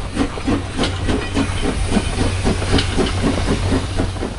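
Steam locomotive working under way: rapid, even exhaust chuffs over a hiss of steam and a steady low rumble.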